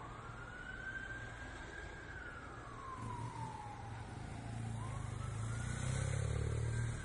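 Emergency vehicle siren wailing slowly, rising, holding, falling and rising again, over a low vehicle engine rumble that grows louder in the second half.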